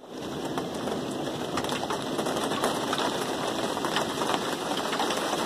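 Rain falling on the boat: a steady hiss with many small drop ticks.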